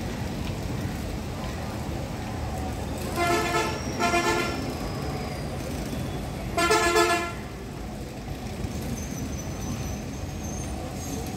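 A horn sounds three times: two short toots in quick succession, then a slightly longer blast about two and a half seconds later, each with the same pitch.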